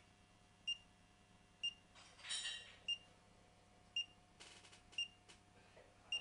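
G-Click gyroscopic switch's control box giving short high electronic beeps, six in all, about one a second, each one signalling that the tilted gyro sensor has triggered the switch. A short burst of noise comes near the middle.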